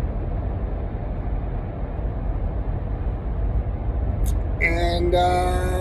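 Steady low rumble of background noise, with a short click about four seconds in, then a man's voice drawing out a word near the end.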